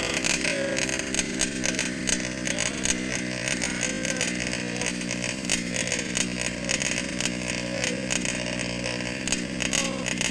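Tuned 26 cc two-stroke engine of a 1:5-scale petrol RC buggy, running with its revs rising and falling as the buggy is driven off-road. Scattered clicks and clatter run through the engine note.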